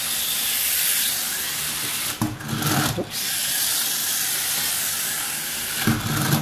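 Tamiya Mini 4WD toy car's small electric motor and gears whirring loudly at full speed, switched on with a sudden start. A few knocks about two and three seconds in, and again near the end, as the car is handled and set running across a wooden table.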